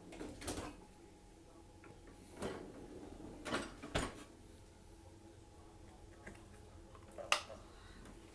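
A few separate knocks and clatters of dishes and dishwasher racks being handled, the loudest near the end.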